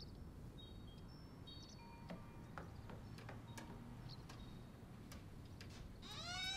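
Quiet room with faint, irregular small ticks. Near the end a golden retriever starts a high, pitched whine, rising in pitch: a dog whining to be let out.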